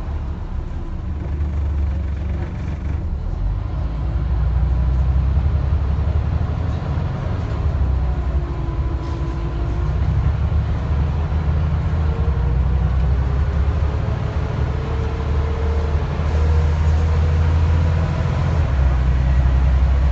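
Scania N94UD double-decker bus running along the road, heard from inside the passenger saloon: a steady diesel engine and road rumble that grows louder about four seconds in and again later as the bus gathers speed. Faint tones glide up and down in pitch through it. The engine is the nine-litre five-cylinder diesel.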